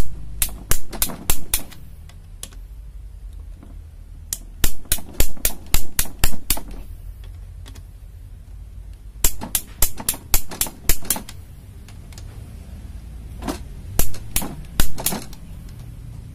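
Ratchet head of a click-type torque wrench clicking in four quick bursts of several clicks each, separated by short pauses, as it tightens the connecting-rod cap bolts.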